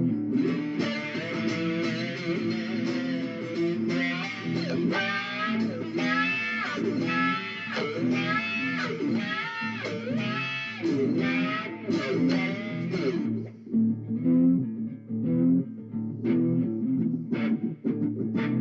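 Guitar music: a melody of notes bending up and down over a steady low accompaniment, thinning to sparser single plucked notes near the end.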